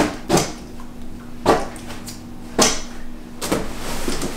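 Knocks, thumps and rustling as a thick cushion is pushed and patted into a hanging wicker egg swing chair, with about five sharp knocks spread across the few seconds.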